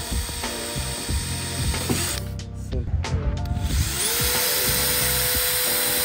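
Cordless drill boring through a carbon-fibre hood to mount a hood latch: it stops briefly a little after two seconds in, then spins up again about four seconds in and runs with a steady whine. Background music plays under it.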